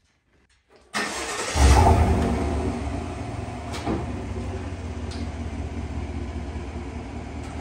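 GM 1500 pickup truck engine starting: the starter cranks briefly about a second in, the engine catches with a short rev flare, then settles into a steady idle. A single click about four seconds in.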